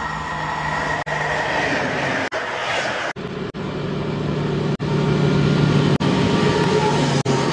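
A train running: a steady low hum with a rushing noise over it, broken by several brief, sudden dropouts.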